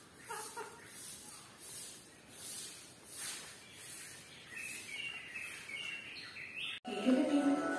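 Quiet ambience with a soft high hiss that swells a little more than once a second, and a few faint chirps, with a run of short high chirps in the second half. Background music cuts back in about seven seconds in.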